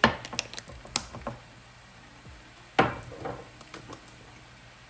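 Kitchen items being handled while seasonings are measured out: a few sharp clicks and knocks, loudest right at the start and again near three seconds in, with lighter ticks between.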